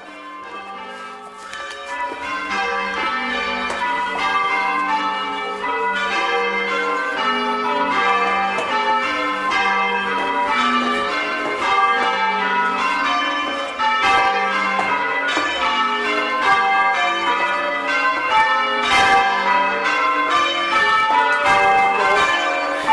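Change ringing on a ring of six church bells, a clonky, old-fashioned 11cwt six in G, struck one after another in a continuous pattern. The ringing builds in loudness over the first few seconds, then holds steady.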